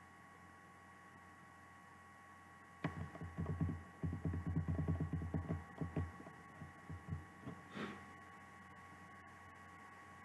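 Steady electrical hum with a faint whine, and in the middle a few seconds of muffled low rumbling and thudding in quick pulses, ending with a brief sharper knock.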